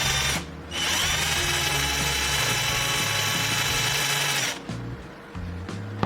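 Small power tool's electric motor running with a high whine. It stops about half a second in, starts again with a rising spin-up, runs steadily for a few seconds, then cuts off. Background music plays underneath.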